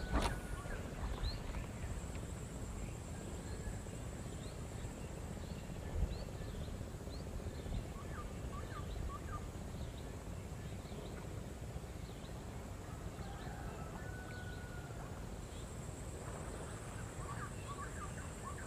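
Open-air ambience by a pond: many short bird chirps over a steady high-pitched drone, with a low wind rumble on the microphone. A soft thump about six seconds in.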